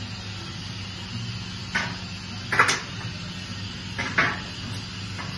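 Metal knocks and clanks from work on a truck chassis and its wheel: three loud ones, with the loudest near the middle, over a steady low hum.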